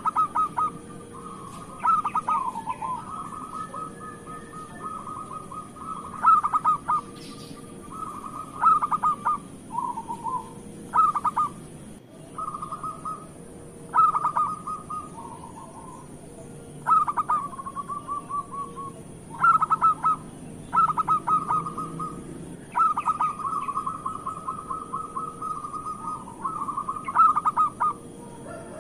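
Zebra dove (local perkutut) singing its cooing song again and again, each phrase a quick run of clipped notes ending in a rolling trill, about every two to three seconds.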